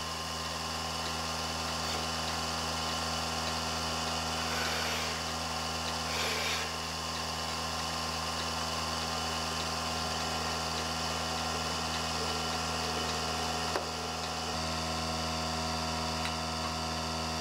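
Portable milking machine's vacuum pump running with a steady hum while the milker is on the cow. A brief hiss comes twice, about five and six seconds in, and a single click comes near the end.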